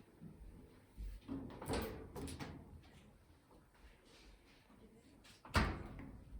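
A few quick knocks and clattering handling sounds, then a single louder thump near the end.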